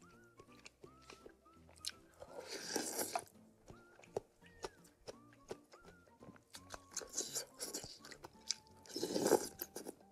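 Close-miked eating of spicy instant noodle soup: chewing with many small wet clicks, and three longer noisy bursts of slurping, about two seconds in, around seven seconds and loudest near the end. Soft background music plays underneath.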